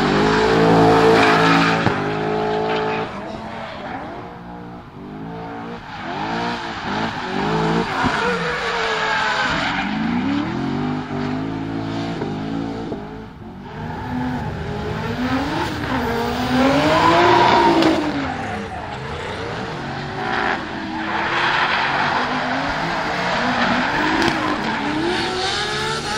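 Drift cars' engines revving hard, the pitch sweeping up and down again and again through long slides, with tyres squealing and skidding.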